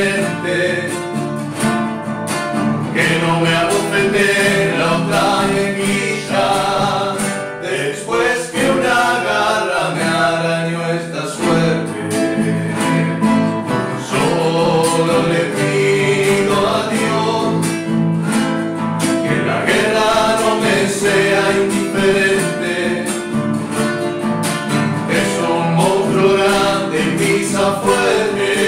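Two male voices singing a Spanish-language folk song, accompanied by two nylon-string classical guitars.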